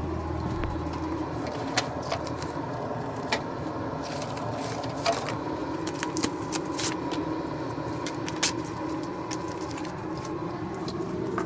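Rummaging through tools and supplies: scattered light clicks and knocks of objects being moved and handled, with the rustle of a sanding-sheet pack, over a steady low hum.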